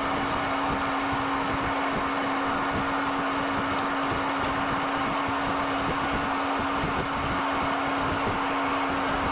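Tractor and a New Holland manure spreader running steadily while unloading a load of dirt: an even rushing noise with a steady hum.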